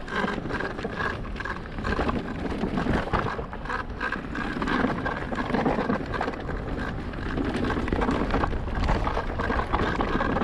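Riding noise from an electric mountain bike on a trail: wind buffeting the camera microphone and tyres rolling, with frequent short rattles and knocks from the bike over rough ground.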